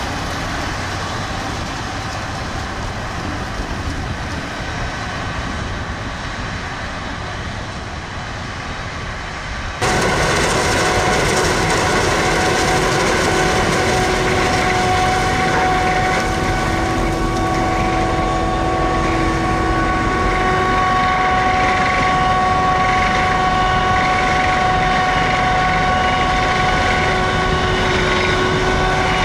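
Claas Jaguar 990 forage harvester running and chopping maize, a loud, steady mechanical drone. About ten seconds in, the sound jumps suddenly louder and several steady high whining tones come in over it.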